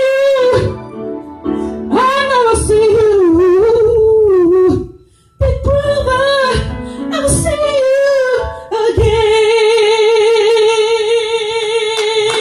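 A woman singing solo through a microphone, with sung runs and a brief break about five seconds in, then one long held note with a wide vibrato from about nine seconds in.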